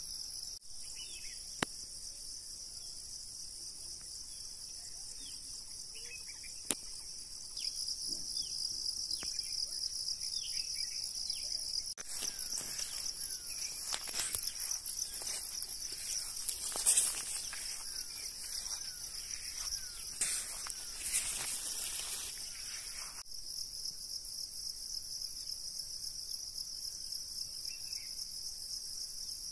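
Steady high, shrill insect chorus with a fine pulsing texture. A few faint chirps and two sharp clicks come early. From about twelve seconds to twenty-three seconds, leaves rustle and footsteps sound as someone walks through a maize field.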